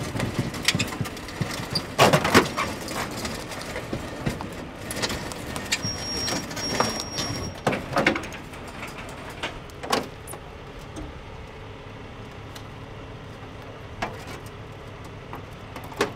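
Clanks and rattles of a wrecked car's crumpled sheet-metal panels and debris being handled, busiest in the first ten seconds and loudest about two seconds in, over a steady low vehicle hum. Two short high beeps sound about six and seven seconds in.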